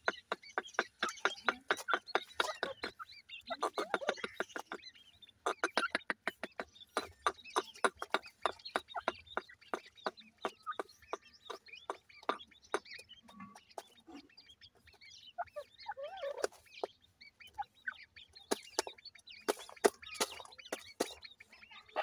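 Grey francolin hen giving runs of rapid short clucks, about five a second, with brief pauses, among her small chicks. A few softer warbling calls from the birds come in between.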